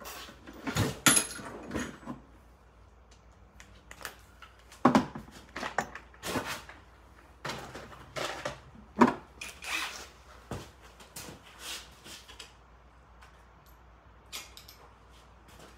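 Irregular metal clanks and knocks from tools and parts being handled while fitting the motor mount bolts on a riding lawnmower, the loudest about a second in, five seconds in and nine seconds in.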